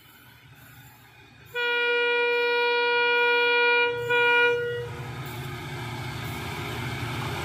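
Diesel locomotive sounding its horn as it approaches: one long steady blast starting about a second and a half in, a brief break, then a short second blast. After the horn, the locomotive's engine and wheel rumble grow steadily louder as it nears.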